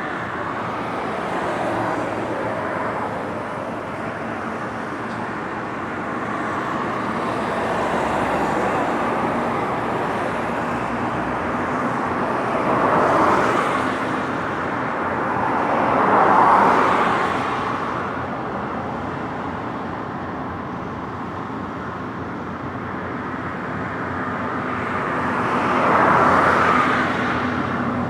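Road traffic on a bridge: a steady hum of tyres and engines, swelling three times as vehicles pass close, twice about halfway through and once near the end.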